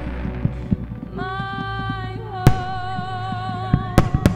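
Pyromusical soundtrack music with a long held, wavering note from about a second in, broken by sharp bangs of firework shells bursting: one about half a second in, a loud one about two and a half seconds in, and three close together near the end.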